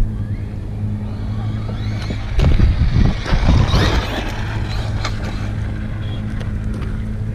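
Brushless electric motor of a 1/10-scale Losi Baja Rey RC truck whining as the truck drives past close by: the whine rises and then falls in pitch over about a second and a half, about two seconds in. A steady low hum runs underneath.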